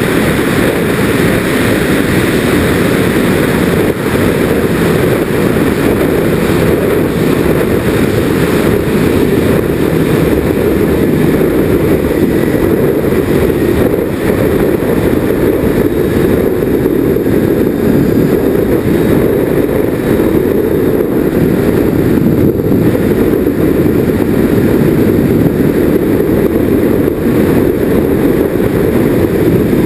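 Twin motors and propellers of a Nitroplanes Grand Cruiser RC plane running steadily, heard from a GoPro mounted on the plane itself, a loud low rush mixed with wind noise over the camera.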